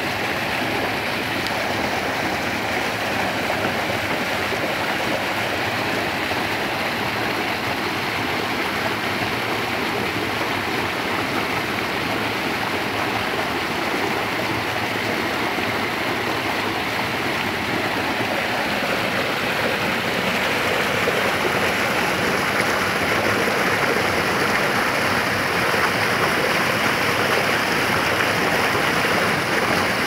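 A small waterfall cascading over boulders and splashing into a rocky pool: a steady rush of water that grows slightly louder and brighter in the last third.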